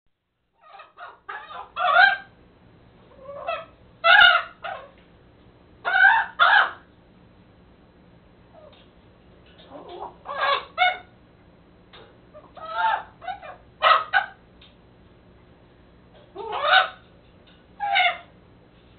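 Pet raven, a White-necked and Common Raven hybrid, babbling to itself: short pitched croaks and chatter in little clusters every second or two. There is one sharp click about four seconds in.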